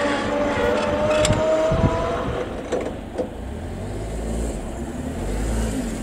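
JR 719 series electric train pulling away: its motor whine rises slightly in pitch and fades, with a few wheel clicks over rail joints. A low rumble comes in near the end.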